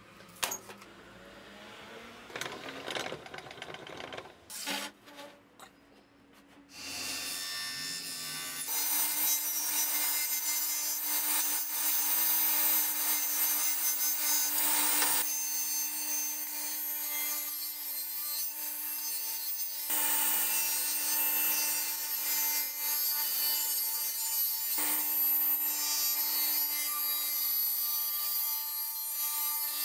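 A few knocks, then a table saw runs and rips a plywood panel faced with glued-on branch slices into strips: a steady motor hum under loud cutting noise from the blade going through the wood. The cutting breaks off briefly and resumes a few times.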